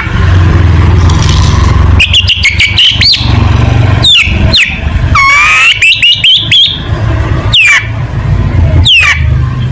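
Long-tailed shrike (cendet) singing: sharp, loud downward-sweeping whistles mixed with quick bursts of short chattering notes and a fast run of rising notes about halfway through, over a steady low hum.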